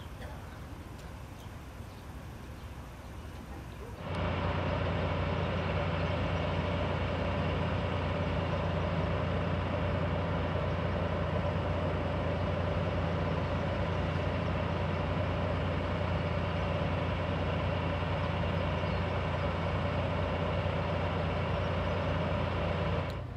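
Steady, unchanging machinery hum with a strong low drone on an airport apron beside a parked Boeing 737-800, starting suddenly about four seconds in. Before that there is a quieter outdoor ambience.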